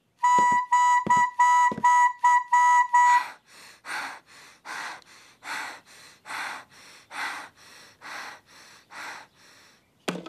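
A cartoon toy trumpet blown in a quick string of short toots for about three seconds, with a few low thumps under the first ones. Then a run of about ten heavy, evenly spaced out-of-breath pants from the tired player.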